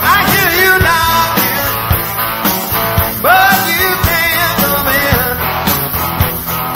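Rock and roll band playing live, with a lead line of notes that bend up in pitch near the start and again about three seconds in, over a steady drum beat.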